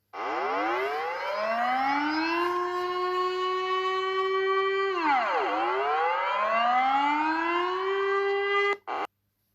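Emergency warning siren winding up in pitch to a steady wail, dropping low about five seconds in, then winding back up and holding before it cuts off suddenly near the end.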